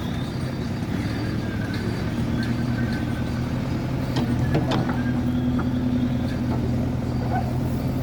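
Diesel engine of a JCB 3DX backhoe loader running steadily under work, with a few short knocks about four to five seconds in.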